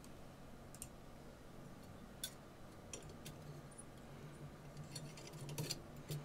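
Faint scattered clicks and taps of small metal and glass parts being handled at a jar-type watch cleaning machine, as the parts basket is fitted to its spindle above the fluid jar, with a few quick clicks close together near the end. A low steady hum runs underneath.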